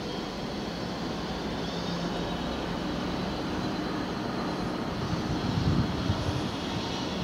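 Class 66 diesel locomotive's two-stroke V12 EMD engine working as it hauls a container train toward the listener, a steady drone growing slowly louder. A heavier low rumble comes in during the last two seconds.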